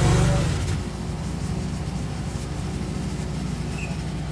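Small petrol engine of a lawn mower running under load, its pitch wavering in the first second, then running steadily.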